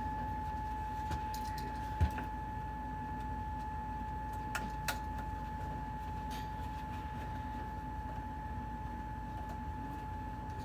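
A few sharp light clicks and taps from pliers and switch wiring being handled, the loudest about two seconds in and two more close together near the middle, over a steady high-pitched tone and a low hum.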